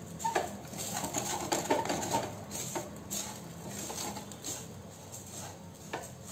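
Wooden spatula stirring and scraping a dry mix of sesame seeds, poppy seeds and desiccated coconut around a kadhai while it roasts: an uneven run of soft scrapes and rustles, with a sharper tap just before the end.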